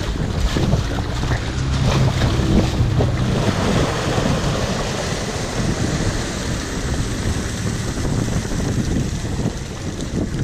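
Wind buffeting the microphone over the sea surging and splashing against a stone landing's steps.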